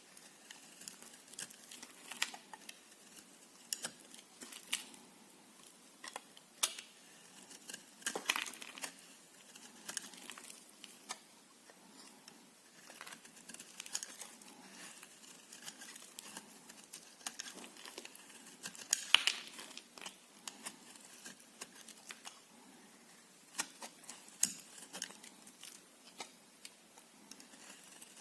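Knife cutting through soap: a run of irregular crisp cuts and crackles, the loudest about 8 and 19 seconds in.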